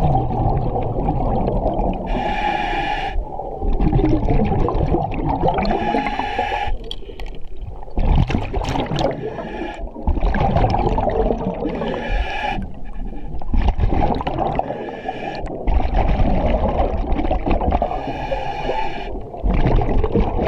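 A diver breathing underwater through a regulator. A short hissing inhale comes four times, about every four to six seconds, and each is followed by a long gurgling rush of exhaled bubbles.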